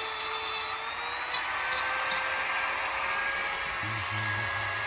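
A steady motor drone with a whine that rises slightly in pitch about a second in.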